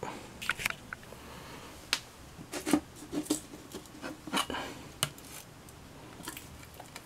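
Scattered light clicks and rustles of hands handling a camera and test rig, with no motor running.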